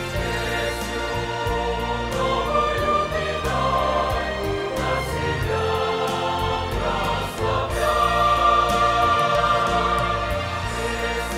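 Mixed choir of men and women singing a church hymn in sustained chords, with instrumental accompaniment carrying steady low bass notes.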